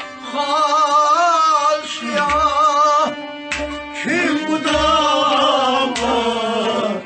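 Kashmiri Sufi song: a man sings long, wavering held notes over music with a low beat about once a second.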